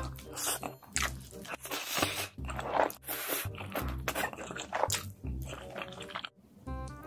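A person slurping and chewing a mouthful of spicy carbonara noodles, with wet mouth sounds, over background music with a steady bass beat.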